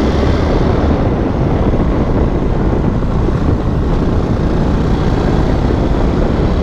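Wind rushing over the camera microphone while a Yamaha WR250X, a 250 cc single-cylinder motard, is ridden, with its engine running underneath the steady noise.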